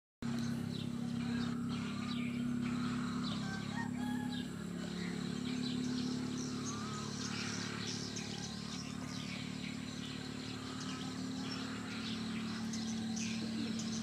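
Many birds calling and chirping at a roost of white egrets waking in the trees, over a steady low machine hum.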